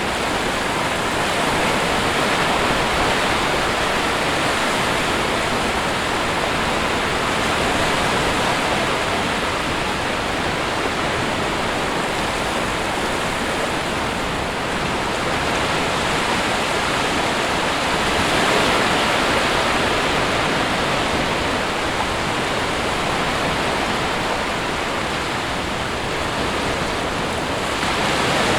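Sea surf washing onto a shore: a steady rushing hiss of breaking waves that swells gently every several seconds.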